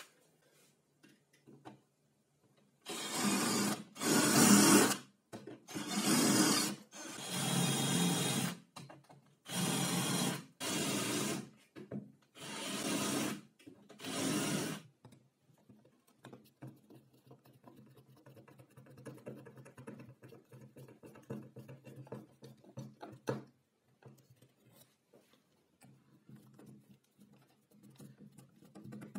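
Power drill run in about eight short bursts, drilling holes through an aluminium U-channel into the wooden table top. After the last burst, about halfway through, only a faint low hum and small clicks remain.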